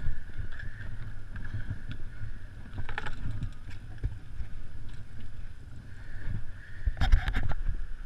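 Low rumble and handling noise from a Surly Pugsley fat bike being walked and lifted over wet shoreline rock, with a short clatter about three seconds in and a louder run of knocks around seven seconds.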